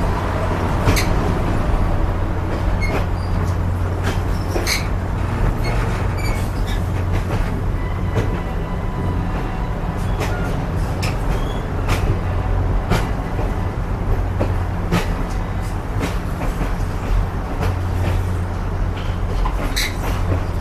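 Railroad passenger coach rolling along the track, heard from inside its open vestibule: a steady low rumble with scattered, irregular clanks and rattles, and at times a faint thin whine.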